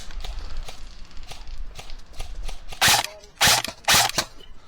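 Footsteps ticking along, then three short, loud bursts of airsoft gunfire about half a second apart.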